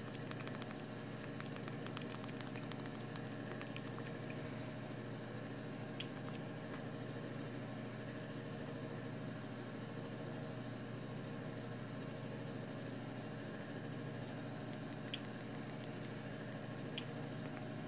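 Steady machine hum with a few faint clicks of Fire TV remote buttons being pressed, a quick run of them near the start.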